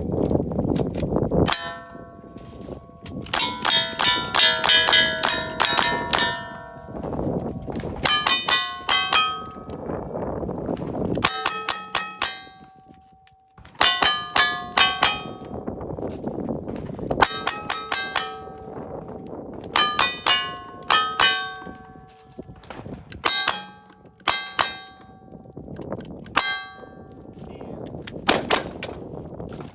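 Strings of rapid gunshots from cowboy action firearms, each hit ringing a steel target with a bright clang. The strings keep coming in bursts with short pauses between them.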